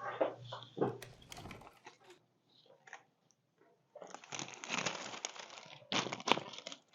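Crinkling and rustling as a patient shifts on a chiropractic adjustment table, in scattered bits at first and then dense from about four seconds in, with one sharp snap about six seconds in.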